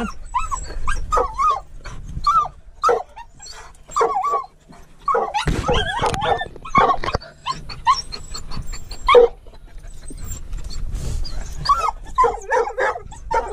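Hunting dogs yipping, whining and giving short barks in quick, excited bursts, working quarry hidden in a rock crevice.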